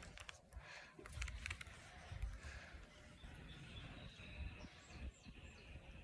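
Faint outdoor ambience: a low rumble throughout, a few soft clicks in the first second, and several short high bird chirps a little before two-thirds of the way through.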